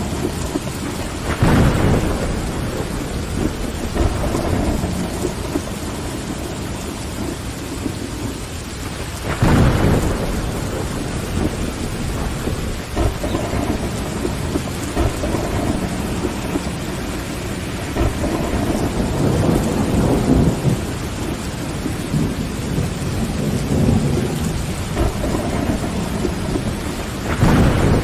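Steady rain with rolling thunder. Louder thunder rumbles come about two seconds in, about a third of the way through, and again at the end.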